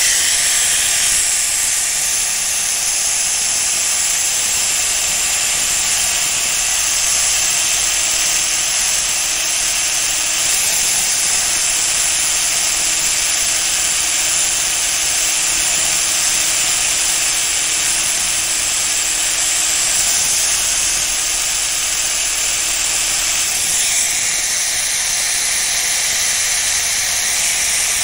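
Power tool resurfacing a steel shear blade: a steady, hissing grind that starts abruptly right at the outset and runs on without a break.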